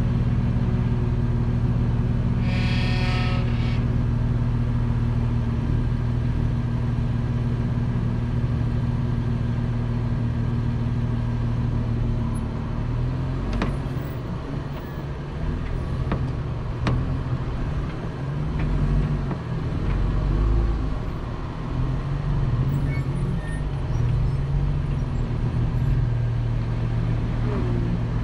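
Jeep engine running at low speed on a rough trail, steady at first, then rising and falling from about halfway on, with a few sharp knocks. A brief high-pitched squeal about three seconds in.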